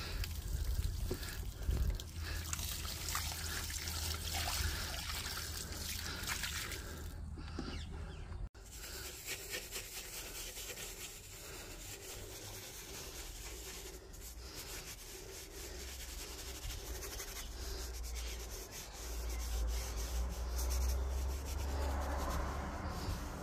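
Soapy wash water in a plastic bucket being handled, then a detailing brush scrubbing a foam-lathered leather steering wheel. There is an abrupt change in the sound about eight and a half seconds in.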